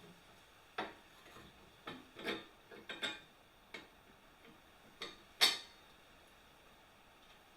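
A series of light, uneven knocks and clicks, about nine in all, the loudest about five and a half seconds in.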